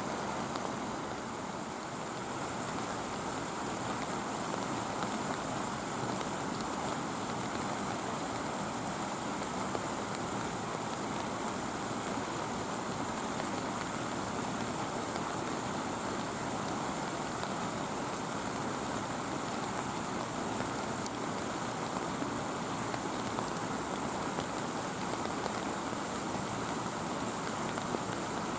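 Steady, even hiss of ambient noise with no distinct events.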